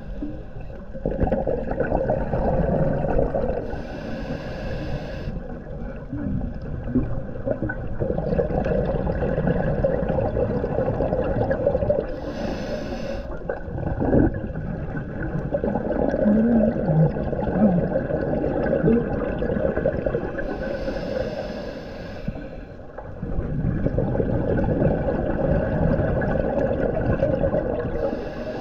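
Scuba diver breathing through a regulator underwater: a short hiss of inhalation about every eight seconds, alternating with longer stretches of bubbling, gurgling exhaled air.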